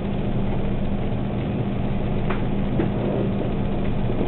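A steady low machine hum, with a couple of faint clicks between two and three seconds in.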